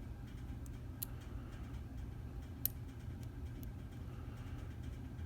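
Light metallic ticks of a lock pick working the pin stack inside a Stanley 24/7 padlock, probing the rear pin that has not yet set: a handful of scattered clicks, the sharpest about two and a half seconds in, over a steady low hum.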